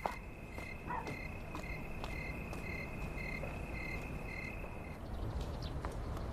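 Crickets chirping in a steady high trill with a regular pulse, which cuts off about five seconds in. A few faint ticks sound through it.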